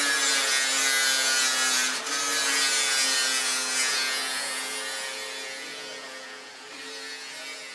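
Angle grinder running against the steel of a car body: a steady motor whine over a loud grinding hiss, with a brief dip about two seconds in, then fading away gradually over the last few seconds.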